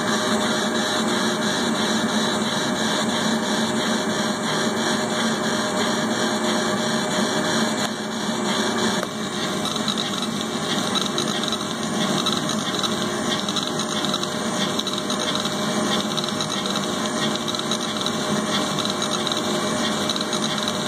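Laser engraving machine running as it etches a glass plate, its head sweeping back and forth. Steady mechanical whir throughout.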